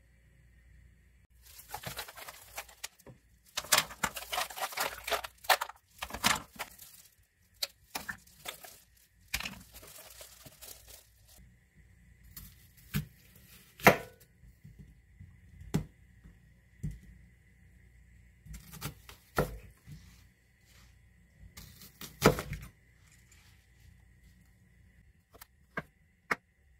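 Kitchen knife cutting an onion on a wooden cutting board: crunchy slicing noise in clusters, then single knife knocks on the board every second or two.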